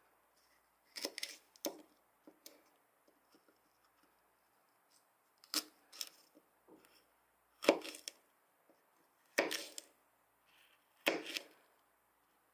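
A small kitchen knife slicing through fresh okra pods onto a plastic cutting board: about seven separate crisp cuts at uneven intervals, a few seconds apart at times, the loudest a little before the middle.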